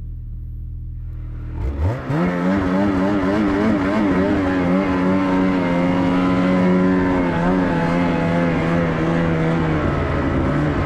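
A 2024 Ski-Doo Summit X Expert Turbo's turbocharged two-stroke twin, new and being broken in, running low at first. About two seconds in it revs up and then runs at a steady pace, its pitch wavering slightly as the sled climbs the trail.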